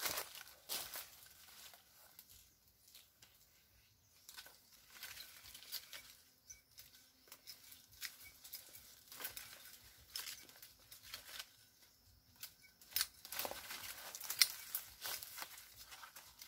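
Leaves and twigs of a cashew bush rustling and crackling as a person's hands push through and handle the branches, in irregular scattered crackles that grow denser and louder near the end.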